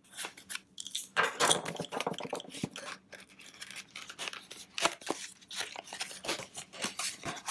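A small retail box being cut and torn open and its plastic tray handled: irregular tearing, rustling and sharp clicks of cardboard and plastic packaging.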